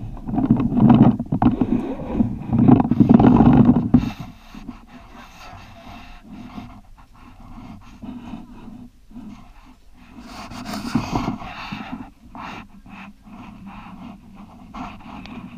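A person breathing hard, close to the microphone, loudest in the first four seconds.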